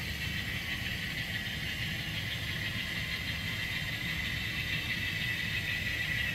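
Model Texas and Pacific GP9 diesel locomotive pulling a freight train along the layout track: a steady whir over a low rumble, growing slightly louder as it comes closer.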